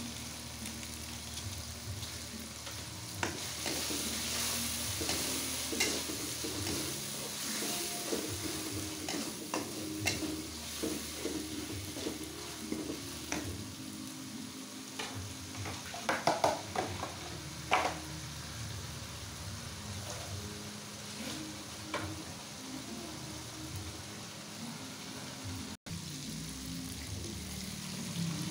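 Chilli sambal paste sizzling in oil in a wok, stirred with a metal spatula that scrapes and knocks against the pan. A few louder knocks come a little past halfway.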